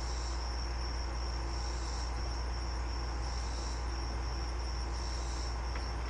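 Crickets chirping steadily, a continuous high trill, over a low steady hum.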